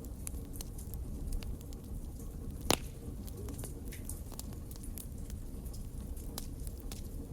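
Wood fire burning with a low steady rumble and scattered crackles, and one sharp, louder pop a little past a third of the way in.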